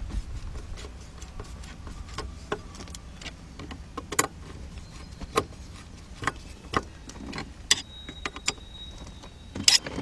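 Screwdriver tightening small screws in an open steering column: irregular sharp clicks and scrapes of the tool on metal and plastic parts.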